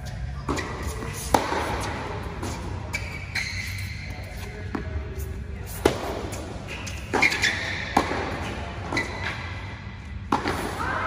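Tennis rally on an indoor hard court: balls struck by rackets and bouncing on the court, about a dozen sharp hits that echo in the hall.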